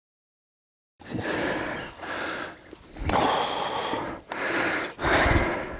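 A man breathing heavily close to the microphone, panting in and out in about five breaths. It starts abruptly about a second in. He is catching his breath after landing and handling a big carp.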